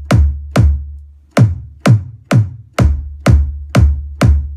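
Synthesized psytrance kick drum from the Bazzism plugin, looping at about two hits a second with one beat skipped about a second in. Each hit is a sharp click that sweeps down in pitch into a long, low sub tail, set by the plugin's pitch sweep and decay.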